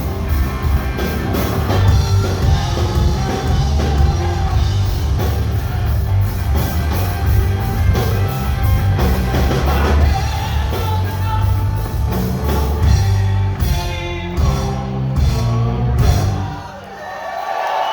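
Live rock band playing loudly with a singer, drums and electric guitars, which stops about a second before the end.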